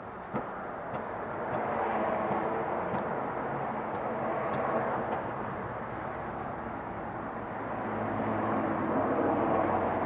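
Distant engine noise that swells and fades twice, with a few faint clicks over it.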